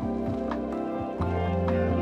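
Background music: soft held chords with light note strikes at an even pace, and the bass note changing a little past the middle.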